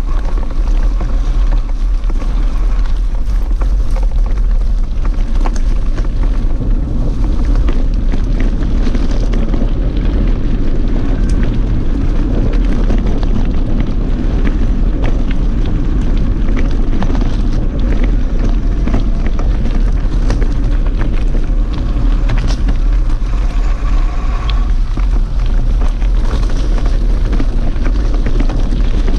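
Wind buffeting the microphone of a camera riding along on a mountain bike, a steady loud rumble, mixed with the crunch of tyres rolling over a gravel forest track and frequent small clicks and rattles from the bike.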